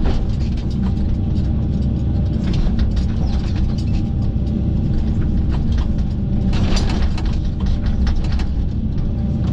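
The diesel engine of a Kobelco SK135SR-7 excavator running steadily under working load as it rips out a tree stump, with scattered clicks and knocks throughout and a denser cluster of them about seven seconds in.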